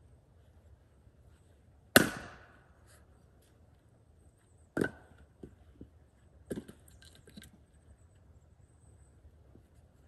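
Splitting axe chopping firewood: a sharp crack as it strikes a round about two seconds in, the loudest sound, with a short ring. A second strike follows nearly three seconds later, then lighter knocks and clatter of wood.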